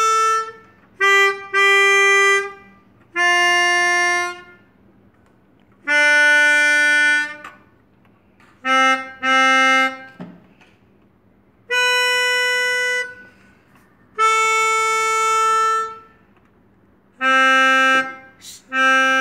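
Melodica (pianika), a mouth-blown free-reed keyboard, playing a slow melody of held single notes, phrased in short bursts of one to two seconds with brief pauses for breath between them.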